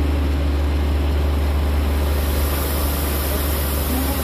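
Self-propelled boom sprayer's engine running steadily as the machine moves slowly along the field, with a steady low hum. A high hiss joins about halfway through.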